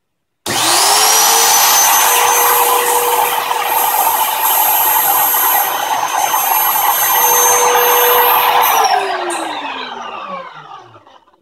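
DeWalt DW660 cut-out tool used as a CNC spindle, switched on about half a second in: it comes up to full speed almost at once, with a loud, steady high whine over a rushing noise. About eight and a half seconds in it is switched off and winds down, the whine falling in pitch and fading until it stops near the end.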